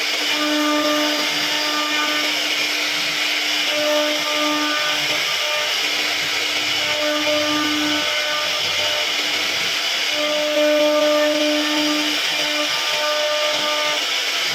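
CNC router carving wood: a steady spindle and cutting noise, with a pitched hum that comes and goes every second or two as the machine moves.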